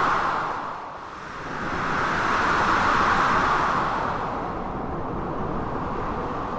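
Blizzard wind and sea surf: a steady rushing noise that swells in slow gusts, dips about a second in, swells again, then settles.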